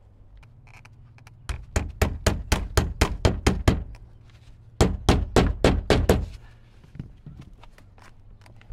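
Claw hammer driving a roofing nail through an eaves support tray: a quick run of about ten strikes at roughly five a second, a short pause, then about seven more.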